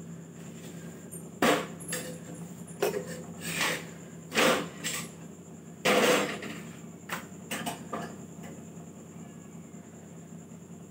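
Metal tongs and a flat spatula clinking and scraping against a tawa on a gas stove as rotis are turned: a handful of sharp clatters, the loudest about four and a half and six seconds in, over a steady low hum.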